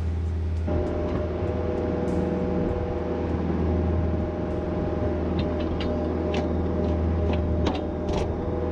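Heavy machine's engine running steadily under load as the storm drain pipe is worked into place. About a second in, a steady higher whine joins it, and short clicks and knocks come through in the second half.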